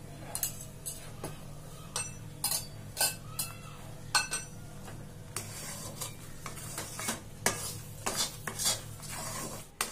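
Steel ladle scraping and knocking against a metal kadai as thick, ghee-rich Ashoka halwa is stirred, in irregular strokes about two a second. The halwa is in its last stage of cooking, with fresh ghee just worked in.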